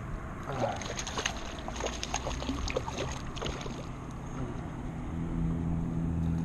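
River water splashing and sloshing with scattered small clicks as a freshly caught trout is handled at the water's edge, over a low rumble. About five seconds in, a steady low motor hum comes up and grows louder.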